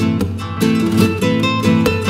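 Background music: acoustic guitar in a flamenco style, with quick strummed chords and plucked notes.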